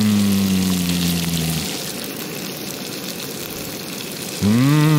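Tofu cubes sizzling in hot oil in a frying pan, a steady hiss. A low steady humming note sounds over it for the first second and a half and comes back about four and a half seconds in.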